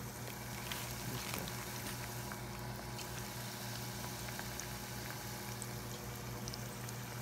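Coated zucchini fries frying in hot grease in a small electric deep fryer: a steady bubbling sizzle with scattered small pops, over a low steady hum.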